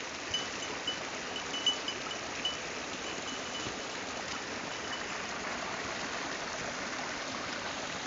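Snowmelt runoff stream trickling and splashing over rocks down a trail, a steady rush of water. A series of short, high peeps sounds over it during the first half.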